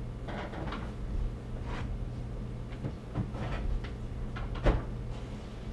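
Kitchen handling sounds as a plastic juice jug is put away: a few soft knocks and rustles, with one sharper knock about three-quarters of the way through.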